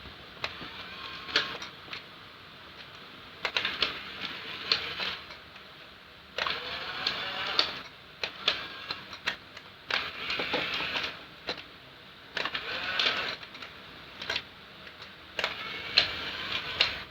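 Small electric gear motors of a radio-controlled model excavator whirring in short bursts of about a second each, with clicks and rattles, as its parts are moved one after another.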